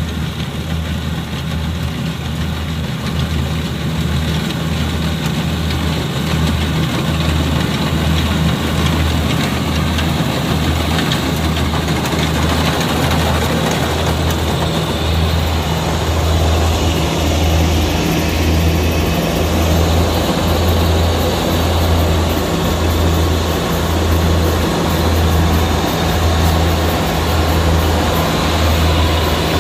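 Diesel engine and machinery of a Kubota DC60 rice combine harvester running steadily under work, a loud low hum that throbs about once a second.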